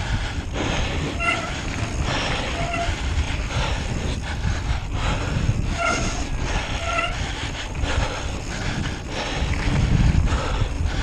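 A cyclist breathing hard while pedalling, each breath a rough rush that swells and fades every second or so. Wind rumbles on the microphone, and short squeaky notes come now and then.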